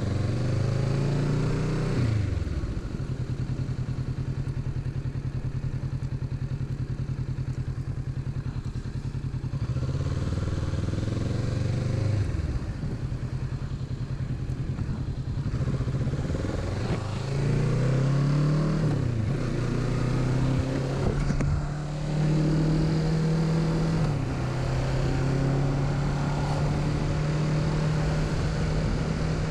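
A 2021 Kawasaki Z650's parallel-twin engine running under way. Its note holds steady for stretches, with the revs dipping and climbing again several times.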